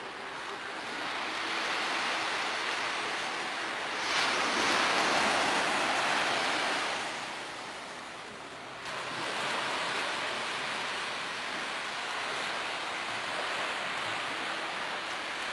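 Ocean surf washing on a beach, a steady rush that swells to its loudest about four to seven seconds in, eases off, then comes back suddenly about nine seconds in.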